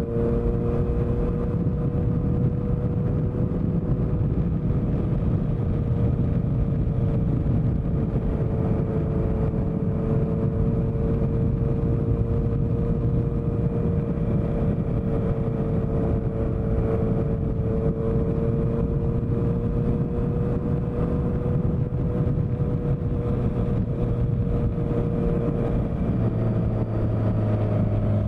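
Honda CBR650F's inline-four engine running through a CS Racing aftermarket exhaust, holding a steady note with only slight wavers in pitch. About two seconds before the end the note changes and a deeper low tone comes in.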